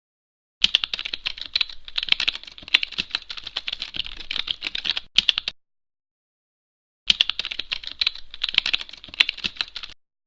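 Rapid typing on a computer keyboard: a dense run of key clicks for about five seconds, a pause of about a second and a half, then a second run of about three seconds.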